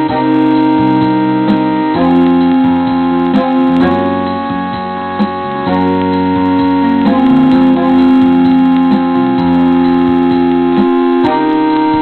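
Background keyboard music: sustained chords that change every couple of seconds.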